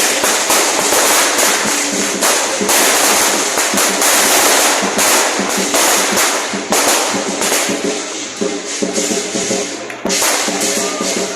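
A long string of firecrackers going off in a dense, continuous crackle, with lion-dance drumming and cymbals under it. The crackling thins out over the last few seconds and the drums and cymbals come through more clearly.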